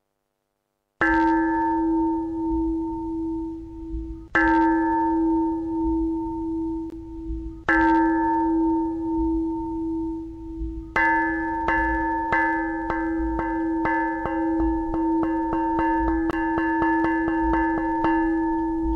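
A bell struck three times slowly, each stroke ringing on a steady tone and fading, then a fast run of strikes, about three a second, starting about eleven seconds in.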